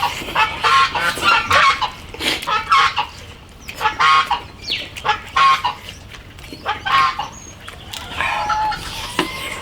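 Chickens clucking, many short calls one after another.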